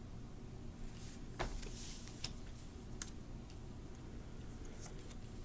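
Tarot cards being handled and moved through the deck: a handful of light clicks and a brief papery slide, over a faint steady room hum.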